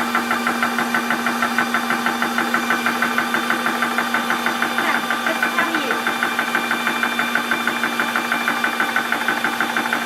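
12V portable high-pressure PCP air compressor running steadily, its piston pumping in a fast even rhythm of about five strokes a second over a steady hum. The pressure relief screw is closed, so it is building pressure into a small 0.25 L aluminium cylinder.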